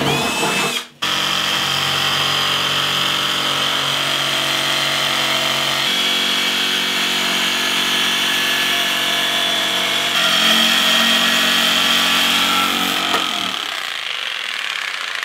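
A drill bores through the steel top of a .50 cal ammo can for about a second, with a rising whine. After a break, a corded jigsaw runs steadily, cutting a round hole in the thin sheet steel. Its pitch steps twice, and it fades out near the end.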